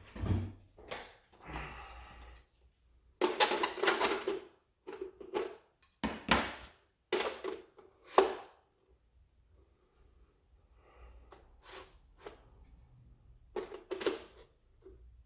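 Hard plastic clicking, knocking and scraping as a 3D-printed ammo holder is worked onto a Nerf Mega XL Boom Dozer blaster. The sounds come in short bursts with quiet gaps, and there is one sharp click about eight seconds in.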